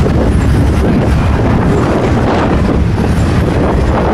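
Strong wind buffeting the microphone over the steady rumble of a passing CSX intermodal freight train.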